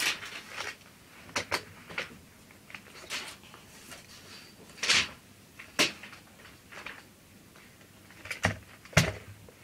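Scattered handling knocks and clicks, about eight sharp ones spaced irregularly, the loudest near the end, as a long-extended tape measure is moved about and set up.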